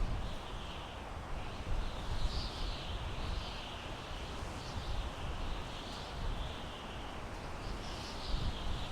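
Wind blowing through pine trees: a steady high hiss that swells and fades every second or so, over a low rumble of wind buffeting the microphone.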